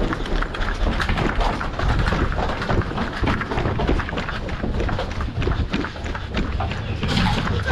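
A player running with the camera: rapid footfalls, gear and clothing rattling, and the microphone being jostled, giving continuous low thumping and clatter.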